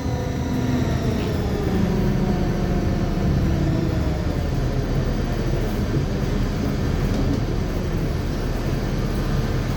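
Mercedes-Benz OF-1724L bus running with a growling rear differential: a whine of several tones slides down in pitch over the first few seconds as the bus slows. Steady running and road noise follow.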